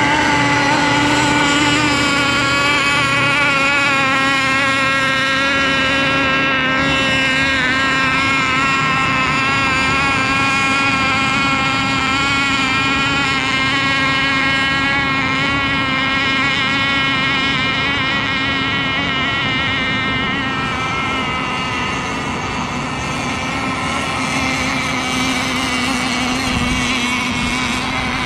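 Radio-controlled racing boats running flat out on the water: a continuous high motor whine whose pitch wavers up and down as the boats race, easing slightly in level after about twenty seconds.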